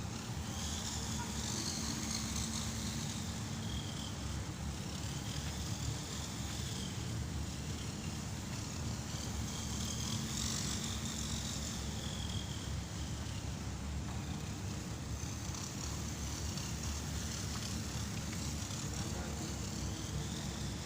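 Bicycle being ridden, making a continuous noise: a steady low rumble with a hum that comes and goes, and a high whine that rises and falls several times.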